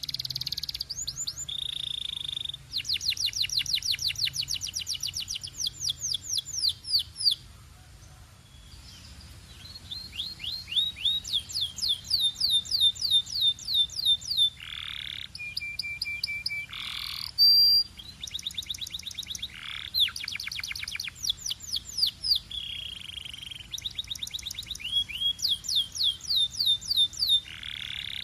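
Domestic canary singing: long rolling trills of fast repeated down-slurred notes, each run lasting a few seconds. The trills are broken by short held whistles and brief pauses, with a quieter lull about a third of the way in.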